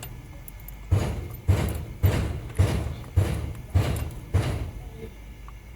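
A regular series of thumps, about two a second, each with a short decay, stopping about four and a half seconds in.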